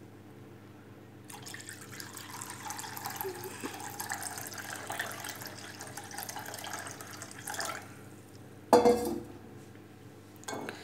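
Water poured in a steady stream from a steel vessel into a bowl of spiced pani puri water, starting about a second in and stopping after about six seconds. Shortly after, one sharp clink, and a smaller click near the end.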